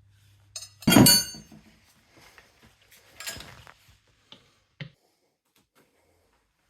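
Metal parts and tools clanking during motorcycle wheel work: a loud ringing metallic clank about a second in, a weaker one a couple of seconds later, then a few small clicks.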